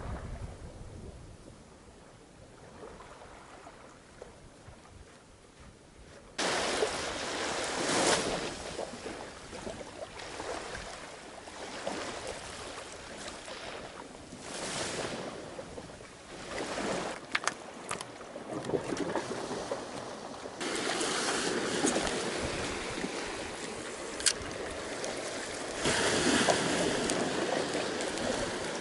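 Sea surf washing over a rocky shore, with wind on the microphone. The noise swells and falls with the surges, jumps up suddenly about six seconds in, and a few sharp clicks cut through it.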